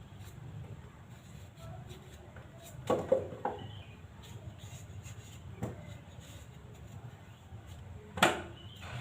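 A few scattered knocks and clatters of kitchen items being handled and set down: two close together about three seconds in, a light one in the middle and the loudest near the end, over a low steady hum.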